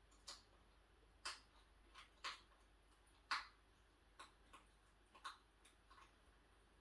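Hedgehog eating cat food from a dish: faint, irregular crunching clicks, about one to two a second, the loudest about three seconds in.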